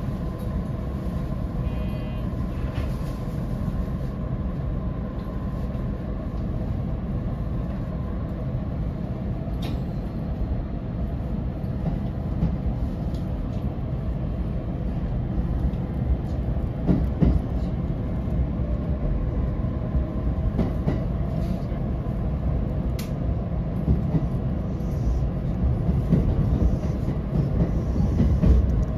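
227 series electric multiple unit running along the line, heard from just behind the driver's cab: a steady rumbling ride noise with faint steady tones over it and a few sharp clicks.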